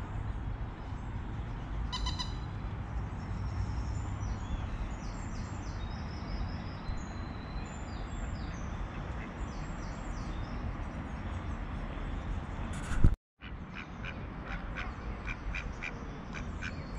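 Birds chirping and calling over a steady low rumble, with one short call with a clear ringing pitch about two seconds in. About two-thirds through, a brief loud spike is followed by a moment of total silence, and then a run of quick, evenly spaced peeps begins.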